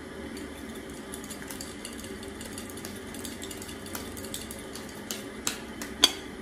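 Xóc đĩa game pieces rattling inside a porcelain bowl turned over a plate as the bowl and plate are shaken steadily, a fine, even clicking. About six seconds in, a sharp knock as the bowl and plate are set down on the floor mat.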